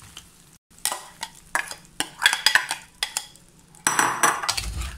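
A spatula and a glass bowl knocking and scraping against a nonstick frying pan as cooked crab is tipped in and stirred into a thick curry. It is a run of irregular clicks and knocks, then a longer scrape near the end.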